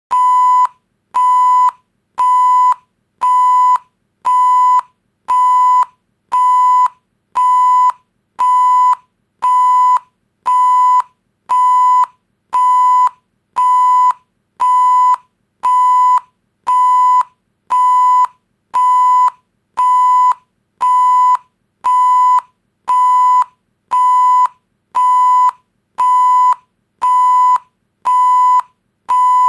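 Electronic 1 kHz beep tone, the standard censor-bleep sound effect, repeating as evenly spaced beeps of about half a second, roughly one per second.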